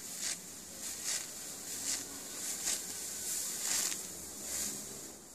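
Ripe rice stalks being cut and gathered by hand: about six crisp rustling swishes, roughly one a second, as the dry stalks are cut.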